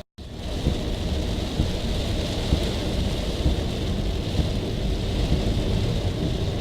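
Steady hurricane rain with a heavy low rumble under it, heard from a car on flooded roads. The sound cuts in after a brief gap at the start.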